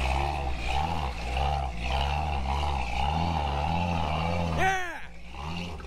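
Toyota FJ40 Land Cruiser engine labouring at low revs as the truck crawls over boulders, its note rising and falling unevenly: a nearly stock 40 whose gearing is not low enough for the rocks, the driver working the clutch. A short falling squeal sounds about four and a half seconds in.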